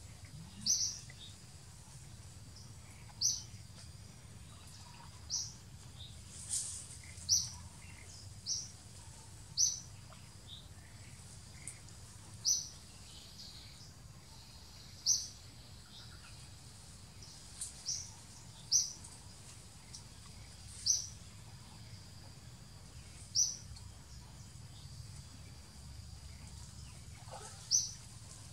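A bird calling with short, high chirps, repeated a dozen or more times at a spacing of one to three seconds, over a steady low background noise.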